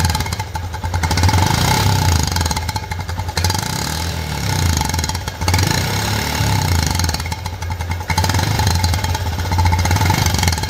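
Honda Livo's single-cylinder four-stroke motorcycle engine, its muffler fitted with a homemade insert to give a deep, bass-heavy Royal Enfield Bullet-style exhaust note, revved up and back down several times from idle.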